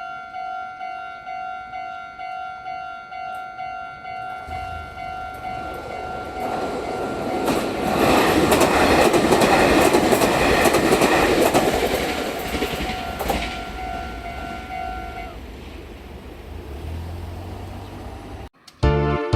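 Meitetsu-type electronic level-crossing bell dinging steadily at about two to three strokes a second while a Meitetsu Hiromi Line train passes over the crossing, its wheels clattering over the rail joints. The bell stops about three-quarters of the way through as the train moves off, and music cuts in right at the end.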